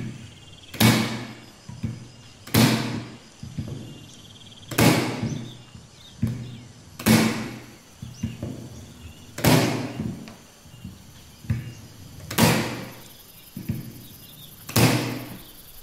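Modern M30F-U electric, compressorless nail gun firing nails into a wooden beam, with its rubber nose pad removed so the nails drive in fully. Seven loud shots come about every two to three seconds, each a sharp crack that dies away over about half a second, with lighter clicks between them.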